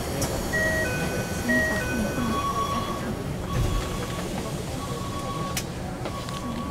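Electronic chime tones inside a train car. A two-note falling chime sounds twice, then a single beep repeats about every second and a quarter, with a sharp knock about five and a half seconds in, over the car's steady low background noise.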